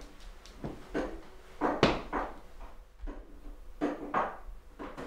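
Irregular knocks and clatter from handling things in a kitchen, such as cupboards, drawers and dishes, about seven in all, the loudest about two seconds in.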